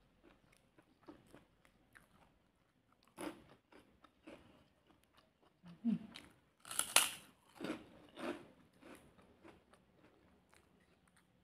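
Close eating sounds: soft chewing by mouth, then a crisp fried cracker (kerupuk) bitten and crunched. The crunching is loudest a little under seven seconds in, with a few more crunches just after.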